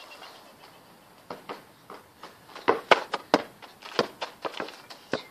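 A run of irregular knocks and taps, several a second, starting about a second in and loudest around three seconds in.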